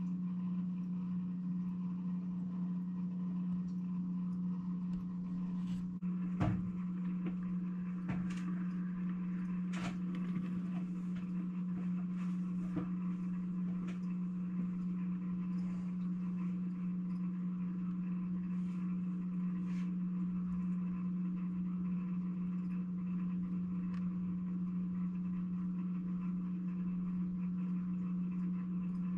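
Steady low electrical hum, with a few faint scattered clicks and one soft knock about six and a half seconds in.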